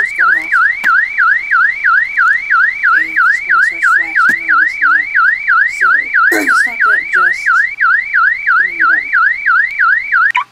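iAlertU anti-theft alarm on a Mac sounding a loud car-alarm siren through the computer's speakers, a warble rising and falling about three times a second, cut off suddenly near the end. It has been set off by a wrong password or button press while the system was armed.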